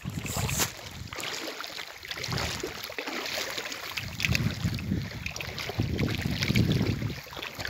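Wind buffeting the microphone in uneven gusts, a low rumbling that swells and fades every second or two, with light crackling over it.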